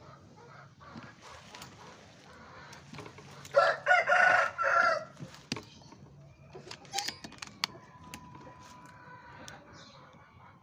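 A rooster crows once, about three and a half seconds in, for about a second and a half. A few faint clicks follow.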